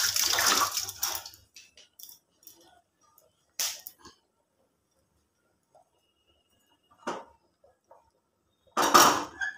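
Kitchen sounds: a rushing, water-like hiss that stops about a second and a half in, then a few scattered light clinks, and a louder clatter near the end.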